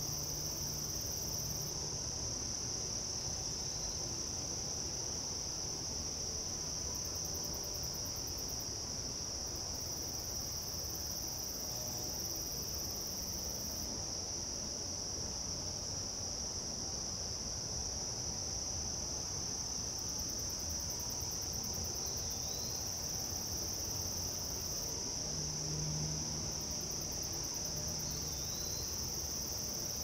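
Outdoor insect chorus: a continuous high-pitched trill that holds steady throughout, with a fainter, higher buzzing that comes and goes. Two brief faint bird chirps come in the last ten seconds.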